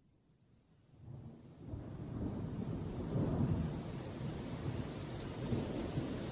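Thunderstorm: a steady hiss of rain with low, rolling thunder, fading in over the first two seconds and loudest around the middle.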